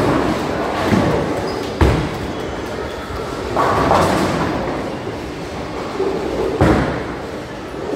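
Bowling alley: bowling balls rumbling down the wooden lanes and pins crashing. There is a sharp crash of pins about two seconds in and another near seven seconds.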